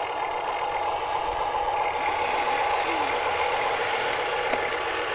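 Huina RC excavator driving on its tracks through loose dirt: a steady motor whine with the tracks grinding and rattling over the soil.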